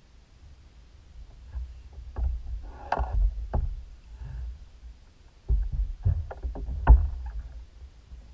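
Water lapping and splashing against the hull of a fishing kayak, with a low rumble and several sharp knocks on the boat, the loudest about seven seconds in.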